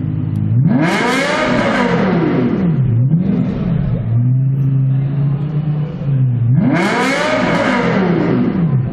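Lexus LFA's V10 engine revved hard twice while standing still: each time the pitch climbs quickly to a high peak and falls back toward idle over about two seconds. Between the two revs the engine runs steadily a little above idle.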